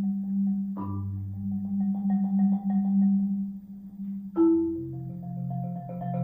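Solo marimba played with mallets: a sustained low roll under a fast repeated higher note, broken by a sharp accented stroke about a second in and another past four seconds, after which the roll moves to a new chord.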